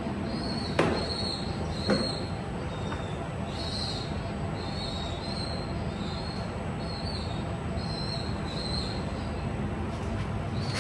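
Two sharp knocks about one and two seconds in as wooden boards and clamps are set down on the CNC router's slotted bed, over a steady machine noise with short high squeaks repeating about once a second.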